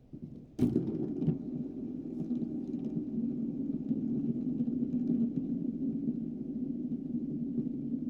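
A steady low rumble with faint scattered ticking, starting suddenly about half a second in.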